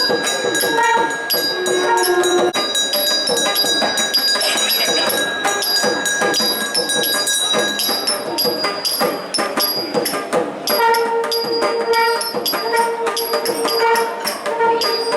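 Bells ringing with rapid, repeated strikes over temple ceremonial music, with held pipe-like notes coming and going through it.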